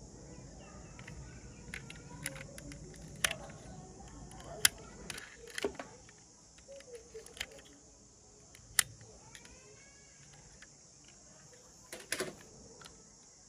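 Scattered sharp clicks and taps as a small die-cast toy car is handled and turned over in the fingers, over a steady high chirring of insects.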